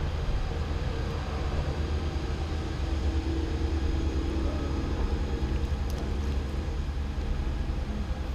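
A steady, low engine drone holding a few even tones: a motor vehicle or other engine running.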